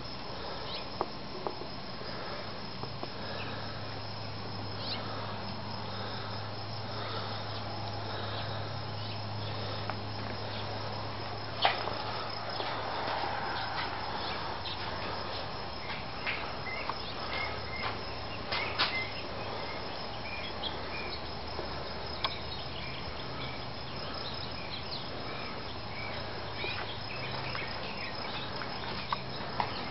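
Outdoor ambience of insects chirping and birds calling, with short repeated chirps over a steady low hum. A few sharp clicks come through, the loudest about a third and two-thirds of the way in.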